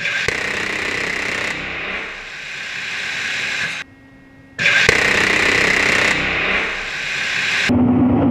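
GAU-8/A Avenger 30 mm seven-barrel rotary cannon firing on a test stand: two long bursts, each one continuous rapid buzz of shots, with a brief gap about four seconds in. A steady low hum joins near the end.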